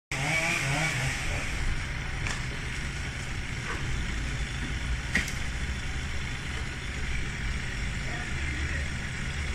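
A vehicle engine running steadily, a low rumble with a few light clicks over it.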